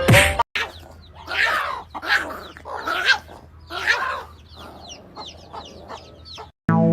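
Bird calls: a series of short, loud squawks that fall in pitch, about a second apart, then fainter calls.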